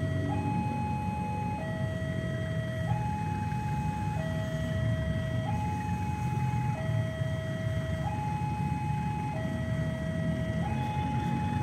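An electronic two-tone warning alarm steadily alternating between a higher and a lower note about every 1.3 seconds, over the low rumble of a train approaching in the distance.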